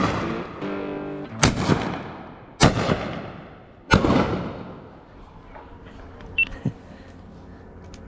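Three 12-gauge shotgun shots about a second apart, each with a long echoing tail, as background music ends. Two light clicks follow a couple of seconds later.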